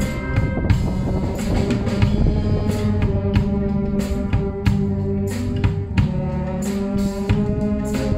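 Wind band playing live: brass holding sustained chords over a steady beat from a drum kit and cymbals.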